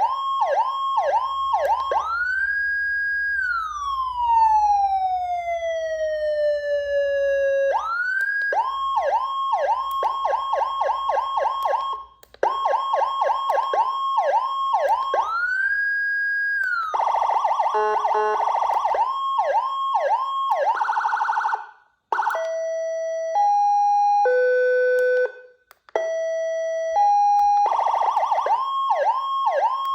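HHS V3 40-tone electronic siren cycling through its tones: quick repeated rising yelps, a long wail that falls slowly in pitch, a fast warble, then alternating two-note hi-lo tones, with brief breaks as the pattern changes.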